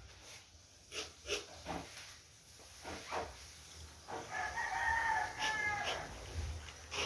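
A rooster crowing once, a drawn-out call of about two seconds starting about four seconds in, preceded by a few light taps and knocks.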